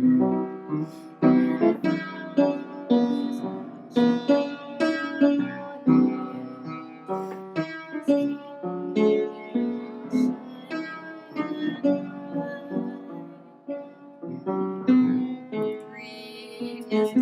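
A piano playing a melody with chords, a new note or chord struck about every half second to a second.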